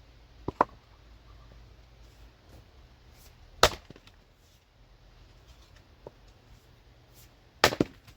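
Axe chopping and splitting firewood: three strikes about every three to four seconds, the middle one the loudest, the first and last each a quick double knock.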